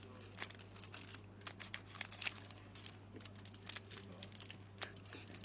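Foil trading card pack wrappers crinkling as they are handled and opened, in scattered faint crackles and clicks.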